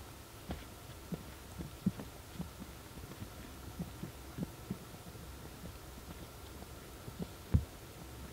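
Diesel tent heater running on a low setting, a steady low hum, with irregular soft low thuds over it and one stronger thud near the end.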